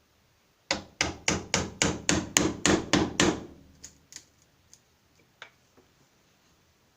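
Hammer driving a wood chisel into a wooden door to cut out the hole for a deadlock: about ten quick, even blows at roughly three a second, then a few light knocks.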